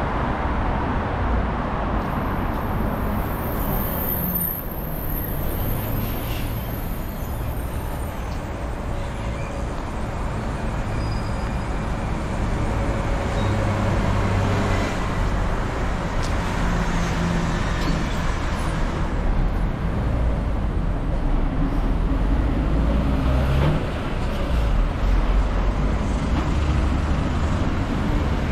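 Steady city road traffic: cars and buses running past, a continuous low rumble.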